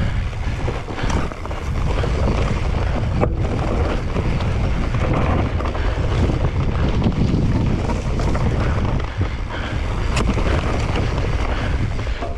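Wind buffeting the microphone, a loud steady rumble with a rushing hiss over it.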